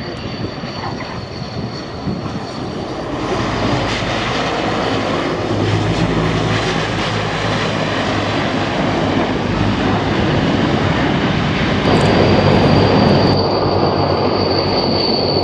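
Transall C-160 transport plane's two Rolls-Royce Tyne turboprop engines running hard on the runway just after touchdown, growing louder a few seconds in. A steady high whine sits over the propeller noise.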